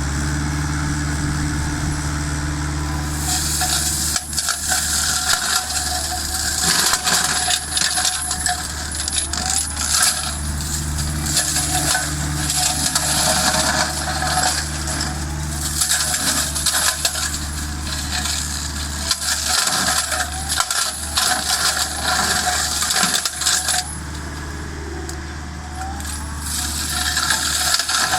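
Excavator running a hydraulic flail mulching head, with the engine and the spinning rotor giving a steady hum. From about three seconds in come repeated bouts of loud clattering, a few seconds each, as the hammer flails shred brush and wood.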